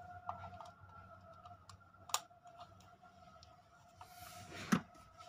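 Small clicks and taps of a screwdriver working at a plastic wall switch plate, with a sharper click about two seconds in and another near the end after a brief scrape, over a faint steady hum.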